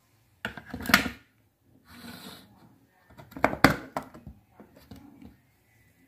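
Hard plastic clicks and knocks as a lithium-ion cell is fitted into a small portable fan's battery compartment and the housing is closed: two clusters of clacks about three seconds apart, with a short scrape between them and a few lighter ticks after.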